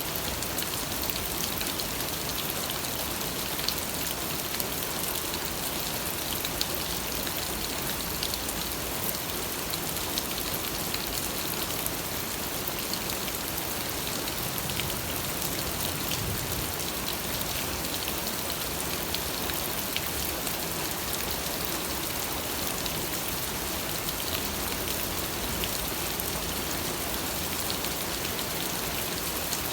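Steady rain falling, with a dense, even hiss and many small drop ticks on a surface.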